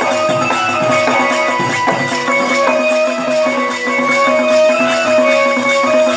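Live traditional folk-theatre accompaniment: a melody of held notes moving step by step over regular percussion beats.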